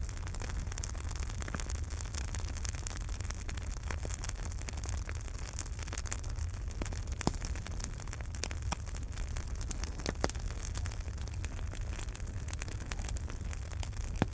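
Wood fire burning in a fireplace: a steady low rumble and hiss of the flames with frequent sharp crackles and pops, a few louder pops in the middle.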